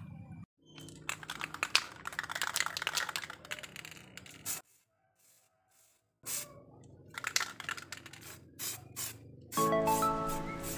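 Irregular clicking and rustling of hands handling a paper-masked motorcycle wheel, broken by a second or so of near silence midway. Background music comes in near the end.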